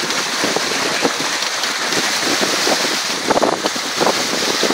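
Wind on the microphone over the rushing water of a sailboat's wake at about 8 knots: a steady, loud hiss.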